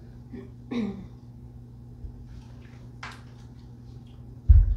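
Steam iron being worked over a fabric strip on a quilted ironing mat: faint short scrapes and rustles over a steady low hum, then two heavy thumps close together near the end.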